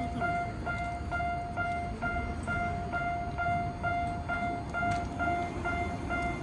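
Japanese railway level-crossing warning bell ringing, a repeating electronic clang at about two strokes a second, over a steady low rumble. A lower steady tone joins about five seconds in.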